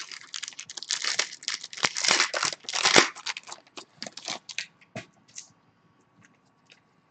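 A foil trading-card pack being torn open and its wrapper crinkled. The crackling is dense for about four seconds, loudest near the middle, then thins to a few light rustles and clicks.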